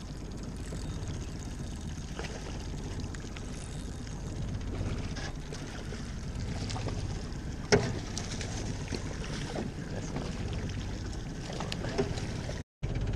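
Steady wind noise on the microphone and light water sounds around a small boat, broken by a single sharp knock about eight seconds in.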